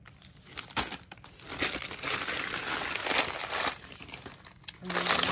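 Plastic bags and tissue-paper wrapping rustling as a mail-order parcel is unpacked by hand, in uneven handling noises for about three seconds before dying down.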